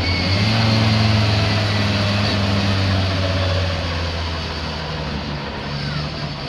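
Racing car engine running at fairly steady revs, louder for the first few seconds and then easing off a little. The uploader calls the car misfiring.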